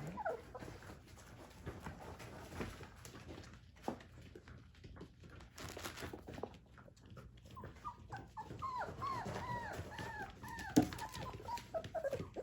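Four-week-old puppies whimpering, with a run of short, high whines in the last third. Under them are scattered small clicks and rustles of the pups moving about, and one sharp tap near the end.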